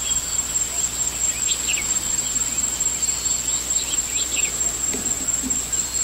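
Insects buzzing in one unbroken, high-pitched tone, with short bird chirps scattered over it.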